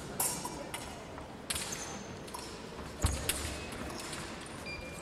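Épée bout in progress: a few sharp knocks and clinks from the fencers' footwork and blades, some with a brief metallic ring.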